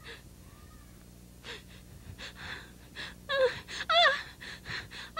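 A person's voice: short gasping breaths, then from about three seconds in a few loud high-pitched cries whose pitch rises and falls.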